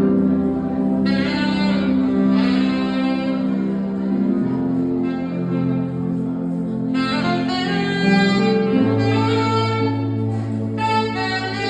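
Saxophone playing a slow melody in long held notes over sustained low accompaniment chords, with new phrases entering about a second in, around seven seconds in and near the end.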